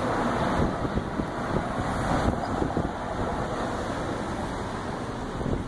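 Wind buffeting the microphone, a steady rushing noise with low fluttering gusts, mixed with the rumble of road traffic.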